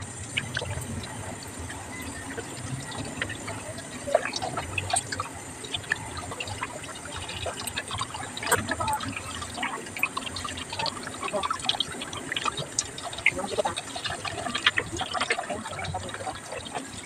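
Tap water running steadily into a stainless steel bowl of water in a steel sink, with irregular wet splashes and small knocks as hands rub and rinse a whole tilapia.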